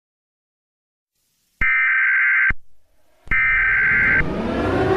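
Emergency Alert System SAME header: after about a second and a half of silence, two bursts of harsh digital data tones, each about a second long with a short pause between them. A lower, shifting background sound comes in under the second burst.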